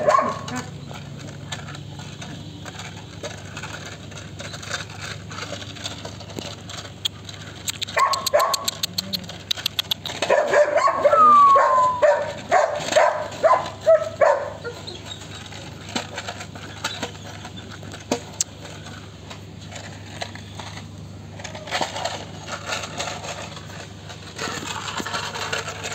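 Belgian Malinois puppy barking and whining in short bursts bunched around the middle, with one falling whine among them.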